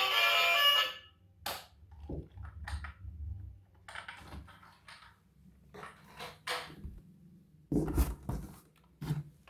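Music stops about a second in, followed by scattered light clicks and knocks from objects being handled, with a heavier thunk and a few knocks about eight seconds in.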